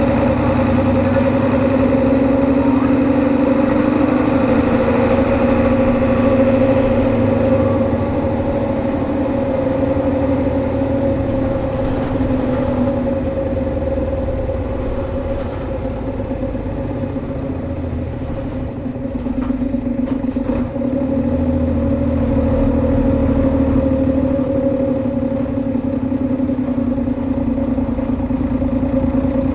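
Hino Blue Ribbon HU2ML bus engine running under way, with a steady two-note drone that is the unusual noise this prototype makes, which the uploader puts down to its rearranged low-floor engine layout. The engine note eases off a little about two-thirds through and picks up again soon after.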